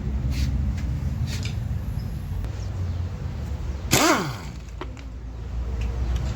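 Light metal clinks of hand tools during engine teardown over a steady low hum, with one brief, loud whine that falls quickly in pitch about four seconds in.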